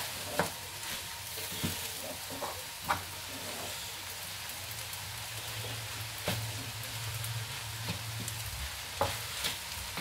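Fried rice with vegetables sizzling steadily in a wok while it is stirred and turned with a wooden spatula. A few sharp knocks, about five in all, come from the spatula striking the pan.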